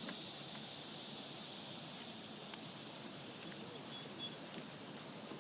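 Steady high insect hiss that slowly fades, with a few faint ticks and rustles.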